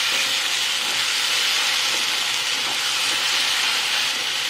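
Eggplant and minced chicken sizzling in sauce in a nonstick frying pan while being stirred with a wooden spatula: a steady hiss.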